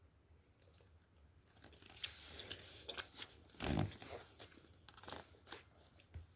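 A child chewing jelly close to the microphone: a run of mouth clicks and chewing noises starting about two seconds in, the loudest a short burst a little past the middle.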